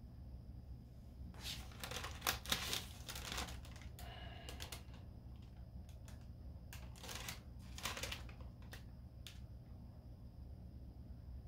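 Parchment paper crinkling and rustling in irregular bursts as it is handled, with scattered small clicks, over a steady low hum.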